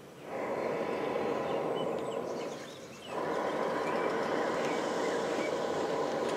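Hot-air balloon's propane burner firing: a steady rushing blast of about two and a half seconds, a short break, then a second blast.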